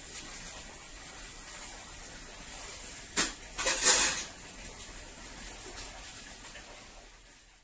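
A sharp knock about three seconds in, followed at once by a brief, louder clatter, over a steady background hiss.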